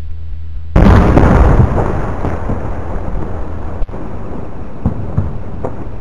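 Artillery shell explosion about a second in: a sudden loud blast that rolls on into a long rumble, slowly dying away, with a few faint cracks in the tail.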